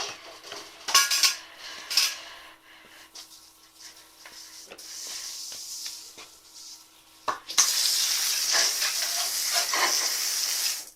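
Metal parts of a sheet-metal wood stove clanking and scraping as they are handled, then water running hard onto the stove for the last few seconds, cutting off suddenly.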